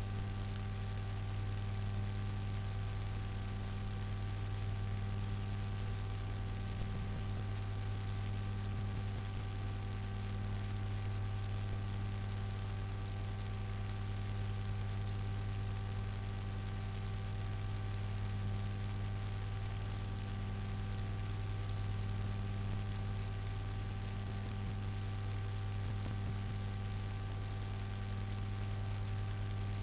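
Steady electrical mains hum with a low buzz and constant hiss underneath, with a few faint brief ticks now and then.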